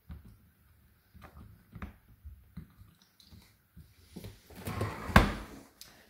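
Small plastic clicks as the dishwasher's rinse-aid dispenser cap is handled, then near the end a louder rattle with one sharp clunk as the dishwasher door is lifted.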